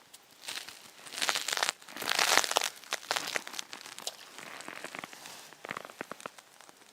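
Footsteps crunching in frozen snow: a crunch about once a second at first, then fainter crackling.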